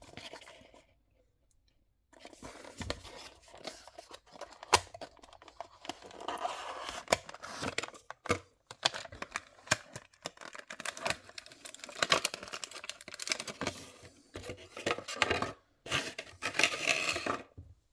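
Hands unpacking a diecast model car from its box and packaging: irregular rustling, scraping and tearing noises with sharp clicks, starting after a short pause.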